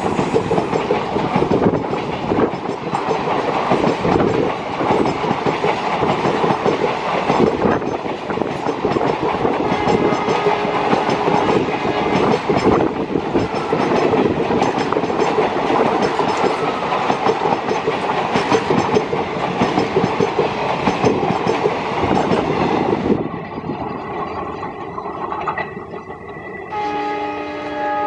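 Passenger coaches of an express train rushing past close by at speed, wheels clattering over the rail joints. The noise drops away about 23 seconds in, and near the end the WDG4 diesel locomotive's horn sounds a steady, multi-tone blast.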